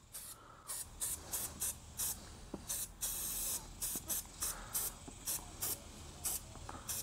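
Motul MC Care E9 wash-and-wax spray hissing out of its nozzle in many quick, short squirts, about two or three a second, with one longer spray about three seconds in.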